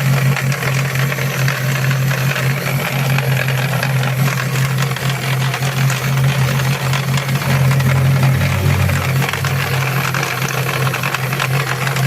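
Chevrolet Celta 2008 four-cylinder engine running steadily with a fast, continuous ticking noise over its hum: an unexplained engine noise that worries the owner.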